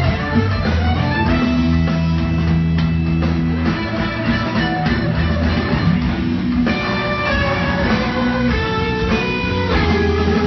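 Live rock band playing loudly: electric guitar over bass and a drum kit, with held bass notes that change every second or two, heard as an audience recording in the hall.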